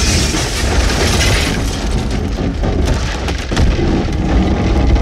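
Cinematic logo-reveal sound effects: deep booming bass under a rushing whoosh, giving way about a second and a half in to a run of sharp hits and crackles.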